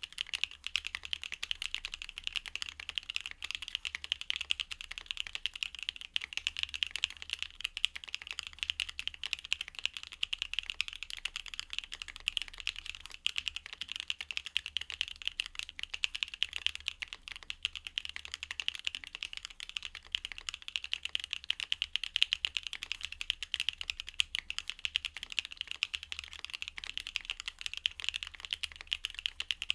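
Continuous typing on a NEO Ergo custom mechanical keyboard with Chaosera Cupid linear switches: a dense, even stream of keystrokes, several a second, with no pauses.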